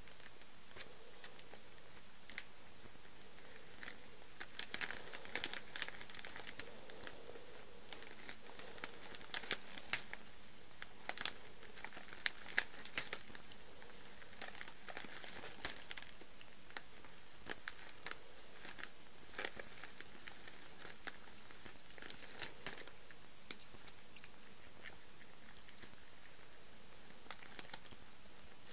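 Cellophane wrapping of a rose bouquet crinkling and crackling in irregular snaps as a cat nibbles at the flowers and pushes its head against the wrap, most of the crackling in the first half.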